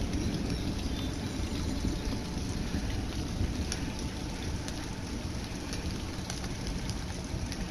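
Steady rain falling, with wind rumbling on the microphone and a few light ticks of drops.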